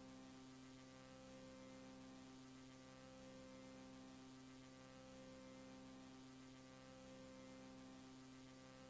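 Near silence: a faint, steady electrical hum with a layer of hiss, from the blank lead-in of a VHS tape being played back.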